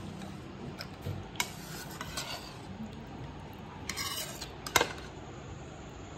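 Metal spoon scraping and clinking against a steel kadai as thick chicken curry is scooped out: scattered clinks, a longer scrape about four seconds in, and one sharp, louder clink just before the five-second mark.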